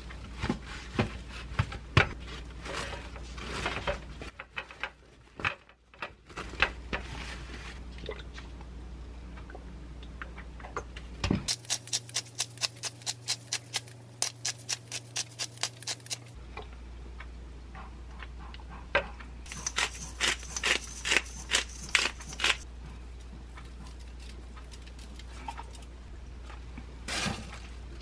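Raw beef patted dry with paper towel on a steel tray: soft taps and rustles. Then a hand-twisted pepper grinder cranked in a rapid, even run of clicks for about five seconds, and another run of grinder clicks a few seconds later.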